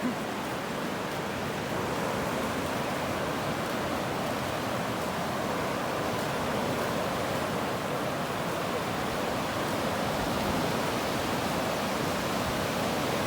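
Sea surf washing onto a sandy beach: a steady rush of waves with no break.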